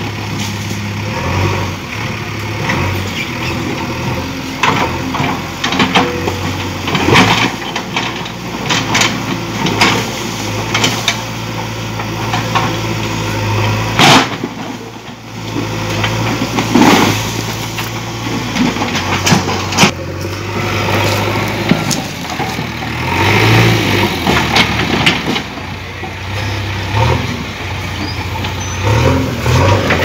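Backhoe loader's diesel engine running steadily while its bucket knocks down a brick wall, with repeated crashes and clatter of breaking brickwork throughout.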